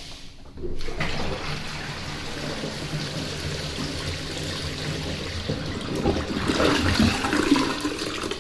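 A concealed push-button cistern flushing into a stainless steel toilet pan: water rushes in suddenly about a second in and runs steadily, growing louder for a stretch near the end.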